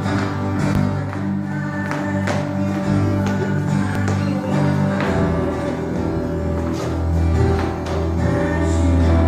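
Intro music with a guitar and a steady beat.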